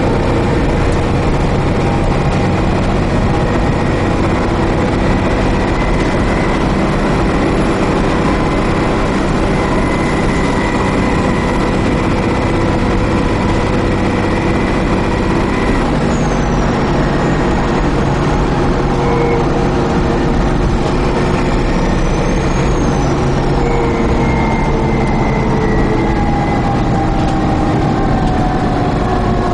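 Dennis Trident 2 double-decker bus under way, heard from on board: a steady engine and drivetrain drone over road rumble. About halfway through the engine note changes and settles at a new pitch.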